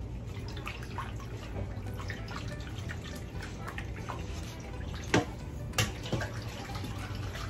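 Gloved hands rinsing fish in water in a stainless steel bowl at a kitchen sink: splashing and dripping, with a few small clicks. Three sharp knocks come about five to six seconds in.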